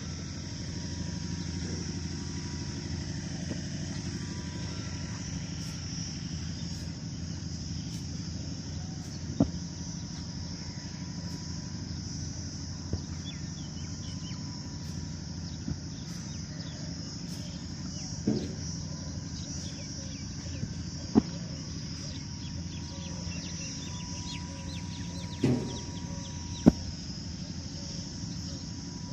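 An engine running steadily at idle, with a constant high insect buzz over it and a few sharp knocks spread through.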